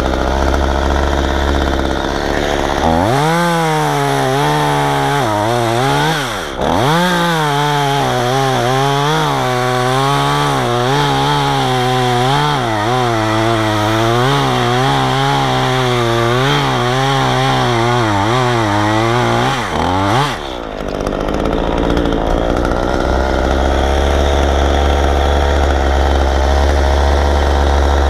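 Two-stroke chainsaw revved up and cutting wood for about seventeen seconds, its pitch wavering as it loads and unloads in the cut, with a brief drop about six seconds in. Before and after the cut it idles low.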